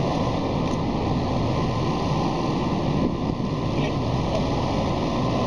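Steady engine drone of a truck-mounted hydraulic crane at work lifting a load, with a faint steady whine above it.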